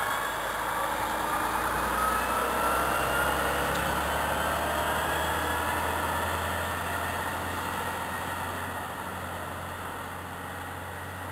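Volvo FM concrete mixer truck's diesel engine pulling away and accelerating, with a rising whine in the first few seconds. It grows loudest as the truck passes, then fades as it drives off into the distance.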